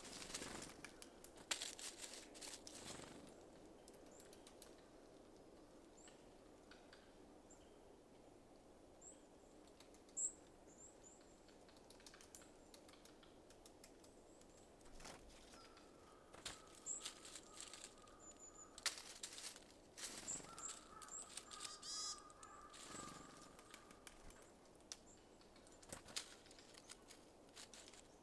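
Small birds at a feeder: faint short high chirps and scattered sharp clicks and crackles of pecking at seed, bunched at the start and again past the middle. A faint steady whine sounds for several seconds in the middle.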